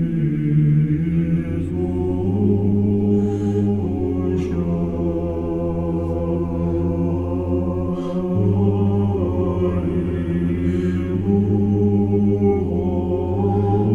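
Low male voices chanting a capella, holding long sustained chords that shift to a new chord every few seconds.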